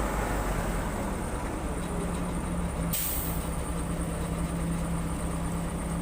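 Case 580 Super L backhoe loader's diesel engine running steadily while it works, with a short sharp hiss about three seconds in.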